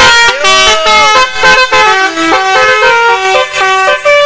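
Tour bus's basuri telolet musical horn playing a quick tune of stepped horn notes, with one note gliding up and back down about half a second in.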